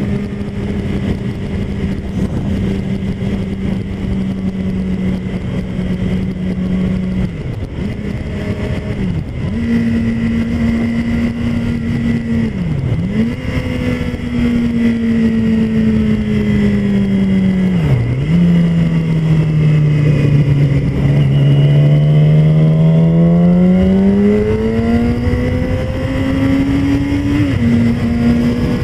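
2007 Yamaha YZF-R6's 600 cc inline-four engine running under way, heard from the rider's helmet camera. Its pitch drops briefly and recovers four times, then climbs steadily through the last third as the bike accelerates.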